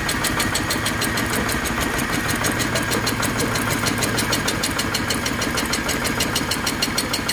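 A land-levelling machine's single-cylinder engine running steadily with an even, rapid firing beat, kept at raised throttle so its charging dynamo lights a homemade headlight.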